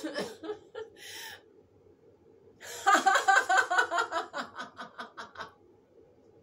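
A woman laughing: a few short, muffled bursts of laughter behind closed lips in the first second or so, then, about three seconds in, a loud burst of open-mouthed "ha-ha-ha" laughter in quick pulses that slow and die away.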